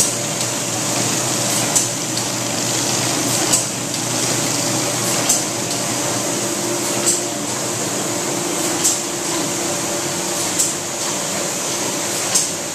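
Kirk-Rudy paper-handling machine running: a steady mechanical hum from its chain drives, sprockets and conveyor belts, with a short, sharp hiss-like sound about every second and three quarters.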